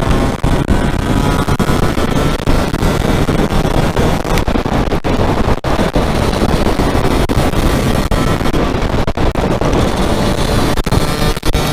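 Aprilia MX 125 two-stroke engine running at road speed under heavy wind rush on the rider's microphone, with a few brief dropouts in the sound.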